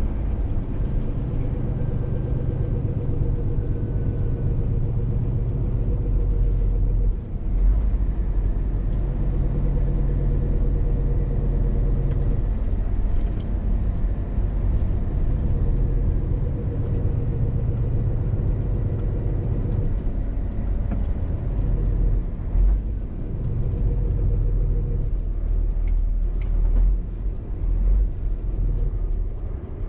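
Scania R450 articulated lorry's 13-litre six-cylinder diesel engine and road noise while driving, a steady low rumble. The engine note drops away and comes back several times.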